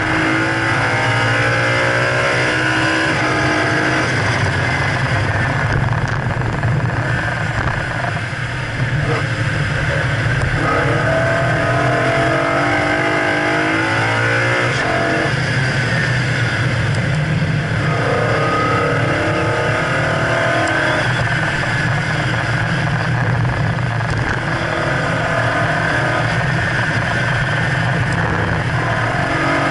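2011 BMW E92 M3's 4.0-litre V8, heard onboard at racing speed, revving up in repeated rising sweeps and dropping back as the car shifts and slows for corners, over steady wind and tyre noise.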